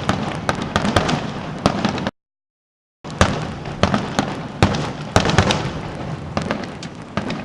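Fireworks display: a rapid barrage of sharp bangs and pops, several a second, over a continuous rumble. The sound cuts out completely for about a second a couple of seconds in, then the barrage resumes.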